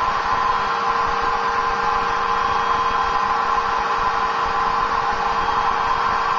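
Electric blower running steadily, pushing air through a hose to inflate a wet down jacket: an even rushing of air with a steady motor hum underneath.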